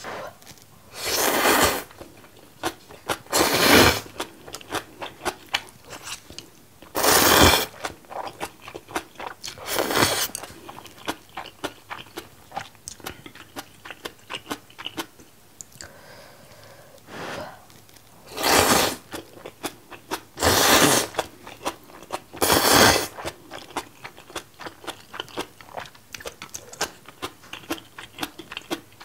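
Close-miked eating of spicy seafood jjamppong ramen: noodles slurped in about seven loud bursts, each under a second, with wet chewing and small mouth clicks in between.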